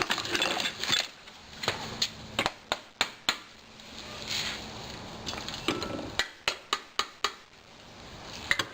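Irregular sharp metal clinks and knocks of tools and engine parts being handled during a small engine teardown, with several in quick succession about three seconds in and again around seven seconds in.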